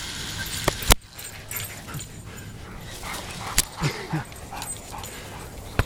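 Rhodesian ridgeback giving a couple of short, rising-and-falling cries about four seconds in, with a few sharp clicks scattered through.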